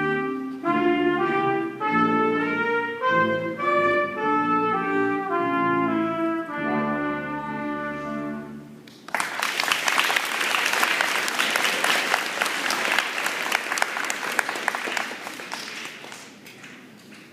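A middle-school wind band playing the closing phrases of a piece in sustained chords, stopping about nine seconds in. An audience then applauds, the clapping dying away near the end.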